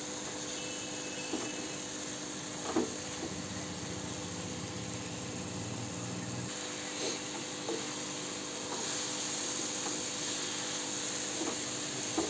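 Dried-fish and eggplant curry sizzling steadily in a frying pan on a gas burner, with a wooden spatula knocking and scraping against the pan a few times. The sizzle grows a little brighter about nine seconds in.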